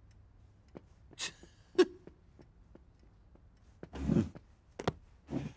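Sparse light clicks and knocks as a wooden chair is pulled out from a table, the longest and loudest sound about four seconds in.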